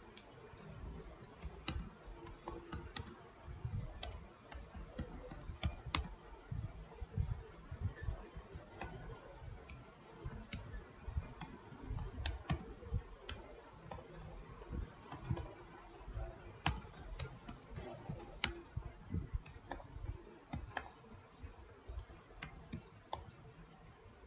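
Typing on a computer keyboard: faint, irregular keystrokes in short runs with brief pauses between them.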